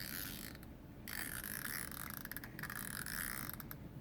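Homemade spinner noisemaker, a plastic drink cap spinning on a toothpick spindle, giving a fast ratcheting clatter of rapid clicks. It stops briefly just under a second in, then spins again for about two and a half seconds.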